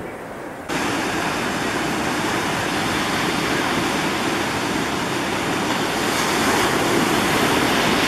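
Ocean surf breaking and washing in the shallows: a steady rushing wash of waves that jumps suddenly louder less than a second in.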